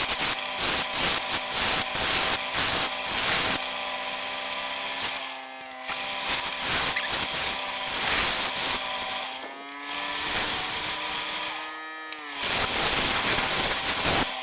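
Wood lathe running with a steady motor hum while a turning tool scrapes the spinning wood in repeated strokes. The scraping lets up briefly about five seconds in, and near the end the sound drops out for a moment and starts again.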